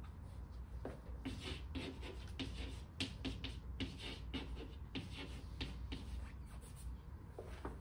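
Writing out an equation by hand: an uneven run of short scratches and taps, several a second, over a steady low hum.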